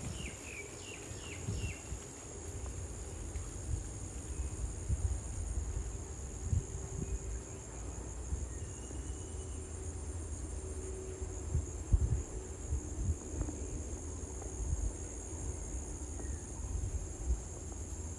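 Steady high-pitched insect chorus running without a break, with a short run of bird chirps in the first second and a half. Uneven low rumble and thumps on the microphone sit underneath, the loudest thump about twelve seconds in.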